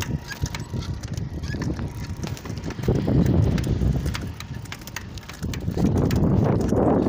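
Wind buffeting a phone's microphone on a moving bicycle, as low rumbling gusts that grow louder about three seconds in and again near the end, with scattered light clicks.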